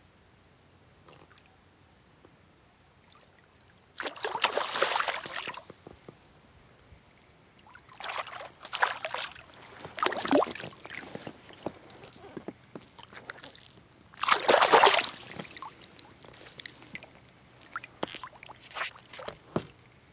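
A hooked bass thrashing and splashing at the water's surface as it is drawn in to the bank and grabbed by hand. The splashing comes in several separate bursts, the loudest about four seconds in and again about three-quarters of the way through.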